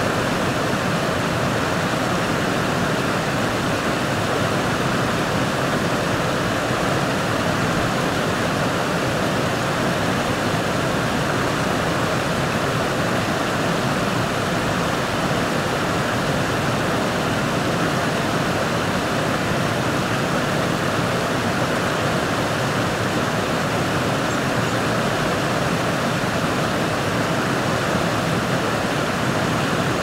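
Steady, even hiss of falling rain, heard from inside a car.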